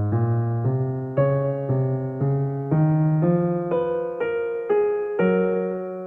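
Background piano music: a gentle melody with a new note or chord about twice a second.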